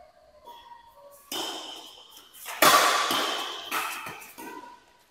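Badminton doubles rally in an echoing hall: rackets strike the shuttlecock and the players call out, with three sharp loud moments, the loudest about two and a half seconds in.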